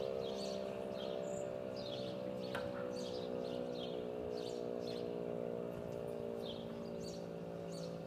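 E57 motor siren sounding a steady tone, a little quieter in the second half, while small birds chirp repeatedly.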